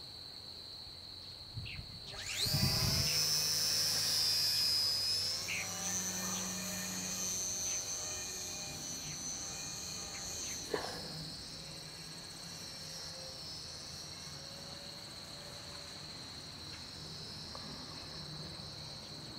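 Small electric motor and propeller of a foam RC park-flyer plane whining as it flies overhead. The whine rises sharply about two seconds in, holds high for several seconds, then drops away at about eleven seconds, leaving a steady high insect trill.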